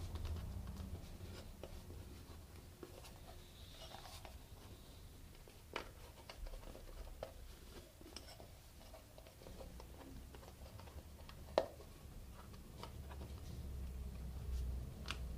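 Soft handling noise of a thick rubber boot piece being squeezed and worked by hand to seat an oval glass lens, with scattered light clicks and taps, the sharpest a little past the middle.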